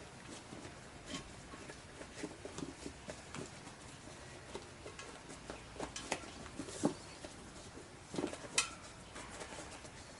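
Motorcycle inner tube being worked by hand into a front tyre on a spoked wheel: irregular rubbing and handling noises of rubber, with a few sharp clicks about six and eight and a half seconds in.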